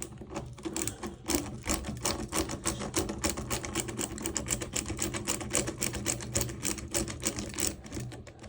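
Rapid, steady clicking from a screwdriver working the screws that hold the front shock of an RC truck, many clicks a second over a low hum.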